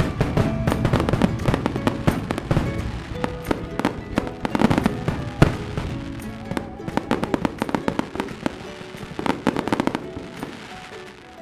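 Fireworks crackling and popping in quick, dense volleys, with one sharp bang standing out about five and a half seconds in. The crackle thins and fades toward the end. Music plays underneath.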